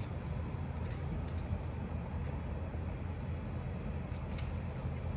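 Steady high-pitched trill of insects, crickets by their sound, with a low rumble underneath.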